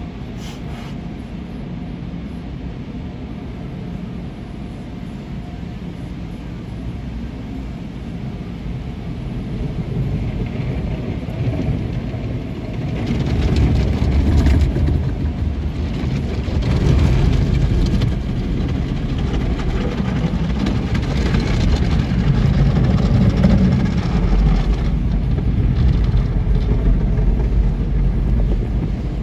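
Automatic tunnel car wash heard from inside the car: water jets spraying over the windshield and body with a steady rushing noise. It grows louder about halfway through as foam and the cloth wash strips work over the car, adding a low rumble.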